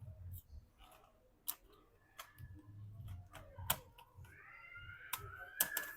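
Faint, scattered clicks and taps of a laptop motherboard being handled and set back into the plastic chassis, with a short squeaky rub about two-thirds of the way through.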